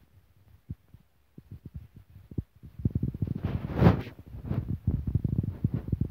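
Alaskan malamute snuffling with its nose pushed into a hole in the soil, close to the microphone: a rapid run of short, low puffs and thuds that starts about a second and a half in, with one louder snort about four seconds in.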